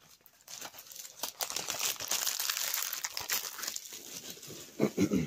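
Plastic shrink-wrap crinkling and crackling as it is handled and torn off a DVD case, with a couple of louder dull knocks near the end.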